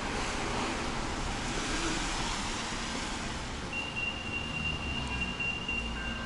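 Street traffic on a wet road: a passing vehicle's tyre hiss swells over the first few seconds and then eases. A steady high-pitched tone comes in about four seconds in.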